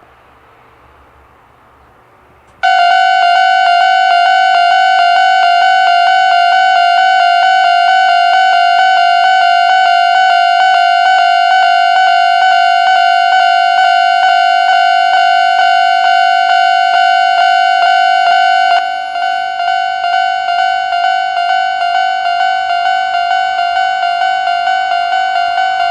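Japanese level crossing warning alarm of the old standard electronic type starting up about three seconds in: a rapid, even string of ringing dings. The crossing's two alarm units sound out of step with each other ("音ズレ"), and the ringing drops a little in level about 19 seconds in.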